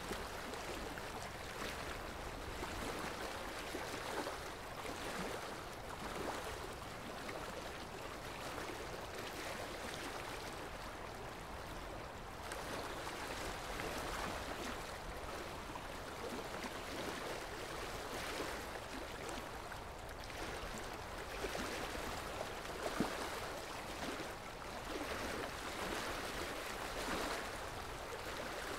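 Quiet, steady wash of calm sea surf, rising and falling gently.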